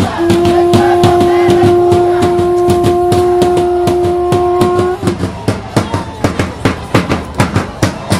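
A horn blown in one long, steady note for about five seconds, over fast drumming that keeps going after the horn stops.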